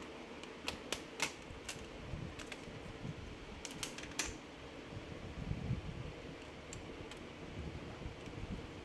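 Screwdriver clicking and tapping on a laptop's plastic bottom case as its screws are taken out: scattered sharp clicks, most of them in the first half.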